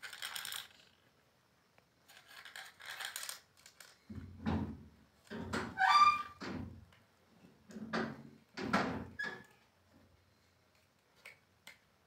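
A bangle batted about by a kitten on a concrete floor: scraping and clattering at first, then several dull thunks, with a brief ringing of the bangle about six seconds in.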